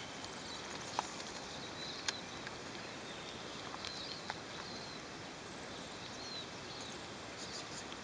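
Quiet riverside ambience: a steady soft hiss with small birds chirping now and then, and a few sharp clicks about one, two and four seconds in.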